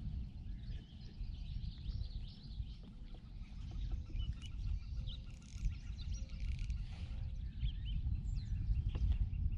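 Wind buffeting the microphone in a low rumble, with birds chirping over it. There is also a fast, even ticking for a few seconds in the middle.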